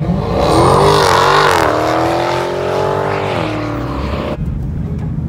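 A car launching and accelerating hard down a strip, its engine revving up with a hiss of tire noise. The pitch drops at a gear change about a second and a half in, climbs again, then eases off before the sound cuts off abruptly.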